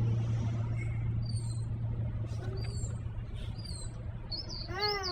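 Small birds chirping here and there in short high calls over a low steady hum that fades out about four seconds in; a short voice sounds near the end.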